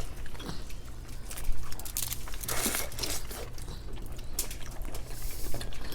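Eating and food-handling noises: crinkling and crunching with small clicks. There is a longer rustle about two and a half seconds in and another near the end, over a low steady hum.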